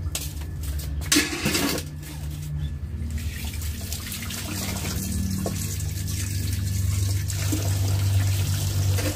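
Water running steadily from a tap, with a steady low hum underneath and a brief louder splash about a second in.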